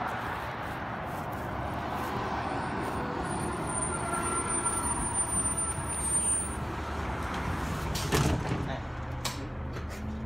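A bus running close by, with a thin high squeal for a few seconds midway. About eight seconds in there is a loud knock, after which the engine settles into a low steady hum.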